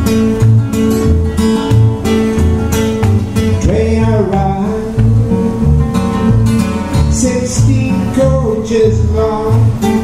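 Two acoustic guitars strummed and picked together in a steady blues-rockabilly rhythm, with a repeating bass-note pattern under held chords and a few sliding notes about four seconds in and again later.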